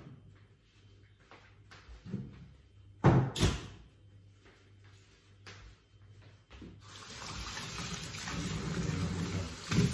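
A few kitchen knocks and clatters, the loudest a pair about three seconds in; about seven seconds in a kitchen tap is turned on and water runs steadily into the sink.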